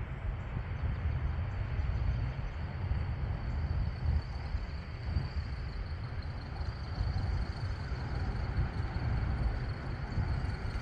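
Passing train, a steady low rumble that carries on without a break.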